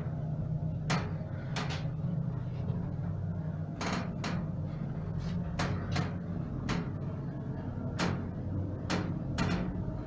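Passenger lift car travelling upward: a steady low hum of the running lift with about ten irregular clicks and knocks from the car and shaft as it climbs.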